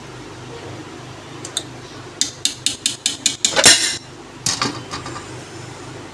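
Metal utensil clinking against a steel cooking pot: a quick run of about seven taps, then a louder scrape and a couple more clinks, over a steady low hum.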